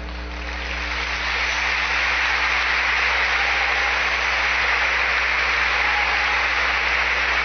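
Congregation applauding, building up over the first couple of seconds and then holding steady.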